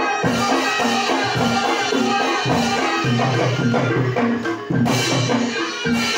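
Barongan gamelan accompaniment: drum strokes and a steady, repeating pattern of tuned percussion notes, with a flute playing over it.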